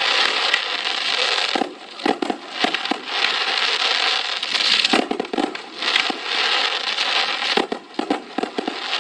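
Fireworks crackling: a dense crackling hiss with sharp snaps scattered through it, coming in waves that ease off briefly about two seconds in and again near the end.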